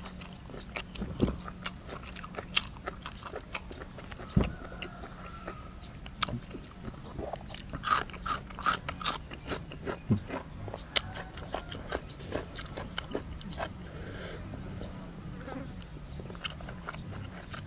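Close-up eating sounds: a person chewing with open-mouthed smacks, a steady scatter of short, sharp, wet clicks that gets busiest about halfway through.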